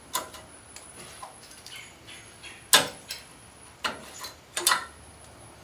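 Old brake pads being worked out of the caliper bracket: metal on metal, giving a few sharp clicks and clanks, the loudest a little under three seconds in.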